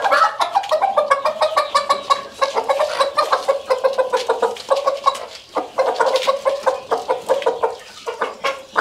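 Chickens clucking in a rapid, continuous run of short calls, easing briefly about five and a half seconds in.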